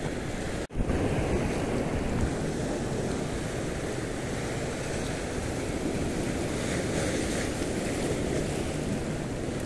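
Waves washing on a shallow reef shore, with wind buffeting the microphone as a steady rushing noise. The sound cuts out for an instant under a second in, then resumes.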